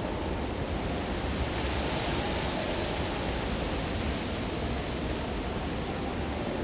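Steady wind noise over a low rumble, with a gust swelling in hiss about two seconds in and easing off again.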